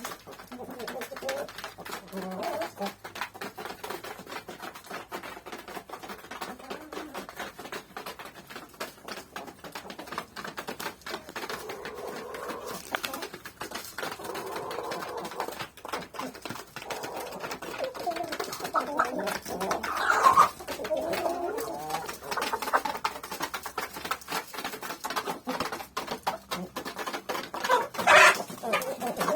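Hens making low, murmuring clucks while pecking at wheat grains, with a constant patter of quick pecking taps. Louder calls stand out about two-thirds of the way in and again near the end.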